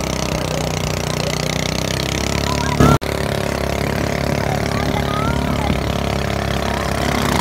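Small motorboat's engine running steadily at speed, heard from aboard, with wind on the microphone and water rushing past the hull. A short loud burst, then a sudden drop, about three seconds in.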